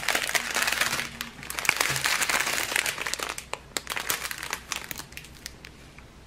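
Plastic zip-lock bags of diamond-painting drills crinkling as they are handled, with many small crackles. Busier and louder for the first few seconds, then lighter and more scattered.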